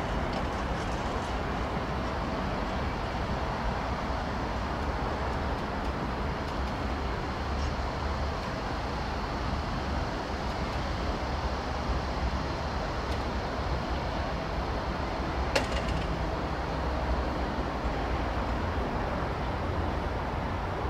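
Steady low rumble and hiss of distant traffic, with a single sharp click about three quarters of the way through.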